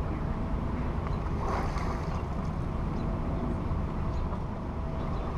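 Steady low rumble of wind and moving water around a small aluminium fishing boat, with a faint steady hum. A brief hiss comes about a second and a half in.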